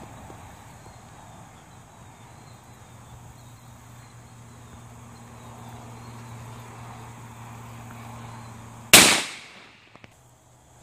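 A single shot from a Savage Model 12 bolt-action rifle in .223, a sharp crack with a short echoing tail, near the end.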